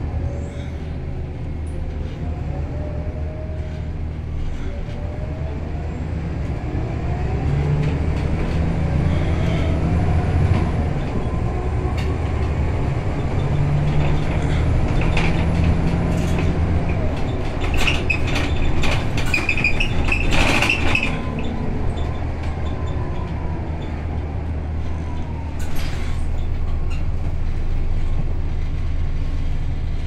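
Scania L94UA bus heard from inside while under way: a steady low engine drone with whines that rise in pitch as it pulls away and changes gear. There are scattered rattles and knocks from the body, and a brief high squeal about two-thirds of the way through.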